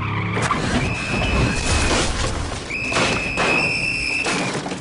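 A car being battered with someone inside: repeated thuds and crunching of the body and shattered windshield, with a high steady tone held twice for over a second each.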